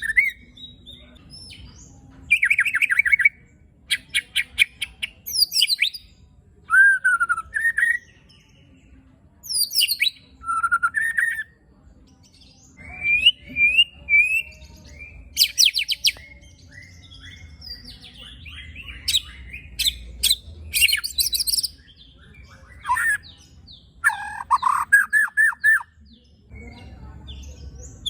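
White-rumped shama singing in loud bursts of one to two seconds, with short pauses between them. The bursts mix rapid-fire trains of sharp notes, whistled glides and harsh, scratchy rattling phrases: the coarse 'shot' and 'rasp' song of an agitated male.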